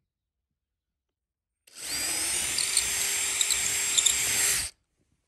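Cordless brushless drill starting up with a rising whine about two seconds in and boring a larger hole into wood, lined up on a small pilot hole. It runs steadily for about three seconds, then stops suddenly.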